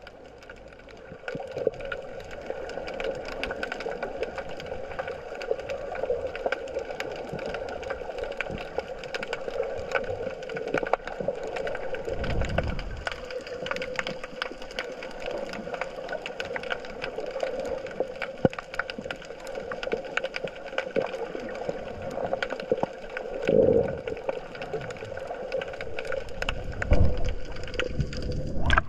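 Underwater sound picked up by a submerged GoPro: a dense, steady crackle of clicks over a constant hum, with a few louder low surges of moving water, the last near the end.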